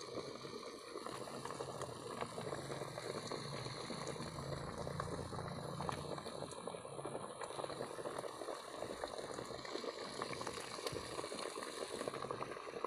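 Water boiling in a steamer pot: a steady bubbling hiss full of small pops and crackles.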